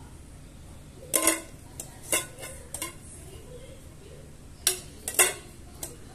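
A string of small, sharp clinks and clicks of hard objects being handled, in two clusters: several about a second in and several more near the end.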